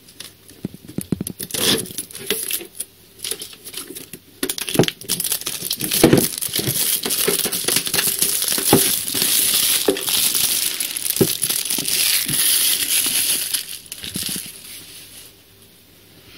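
Clear plastic shrink-wrap being picked at, torn and peeled off a metal collectible card tin. Scattered sharp crackles and clicks come first, then denser crinkling in the middle, which fades away near the end.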